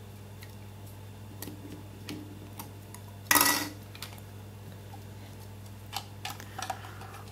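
Small clicks and clatter of the plastic parts of a battery-powered waving lucky cat being handled as its arm is taken off the waving mechanism, with one louder noise lasting about half a second a little after three seconds in.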